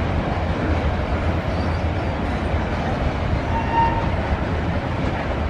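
Loaded bulk-cement tank wagons of a heavy freight train rolling past on a curving upgrade: a steady low rumble of steel wheels on rail, with a brief high squeal about two-thirds of the way through.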